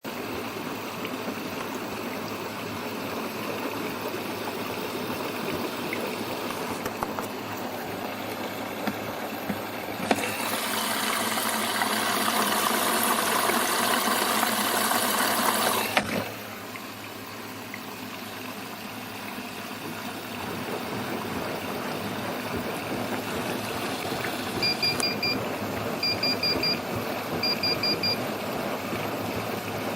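Bosch Serie 6 washer-dryer running with a steady watery rush, louder for about six seconds in the middle before cutting off sharply. Near the end its beeper sounds three quick groups of short, high pips: the persistent beeping fault.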